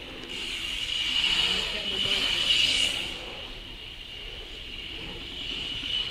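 BMX tyres rolling on a concrete bowl: a rumbling hiss that swells about a second in and eases off after about three seconds. A steady high-pitched whine runs underneath.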